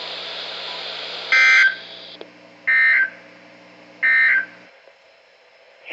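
Three short bursts of EAS digital data tones, the SAME end-of-message signal, about 1.4 seconds apart over radio hiss and hum. The hiss and hum cut off shortly after the last burst.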